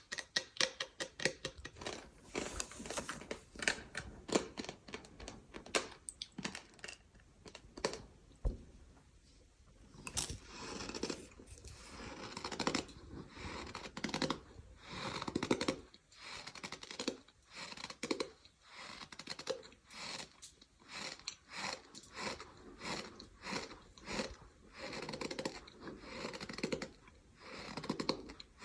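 Sand ASMR: gritty, squeaky crunching of a sand material in many short, irregular crunches, thinning out briefly about eight to ten seconds in.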